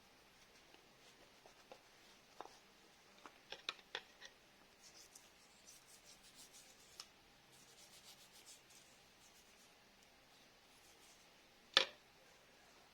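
Faint handling noises of small parts or tools: light rubbing and scattered clicks, with a few quick clicks about four seconds in and one sharp click or knock near the end.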